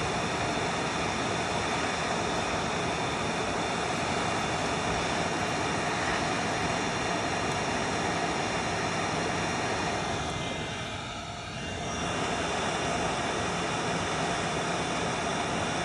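Hot air rework station blowing a steady jet of hot air onto a processor chip's pins to melt the solder and desolder it; the rush of air dips briefly about eleven seconds in, then returns.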